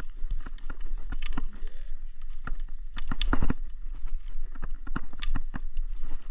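Dry twigs and brush crackling and snapping in irregular sharp clicks as a small kindling fire catches and is fed by hand, with a few louder snaps in the middle. A steady low rumble runs underneath.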